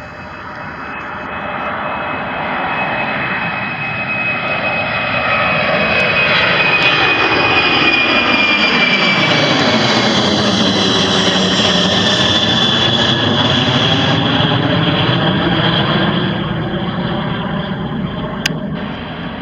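Boeing 747's four jet engines at climb power just after takeoff, passing low overhead. The jet noise builds to its loudest in the middle, a high whine drops in pitch as the aircraft goes over, and the sound then eases as it climbs away.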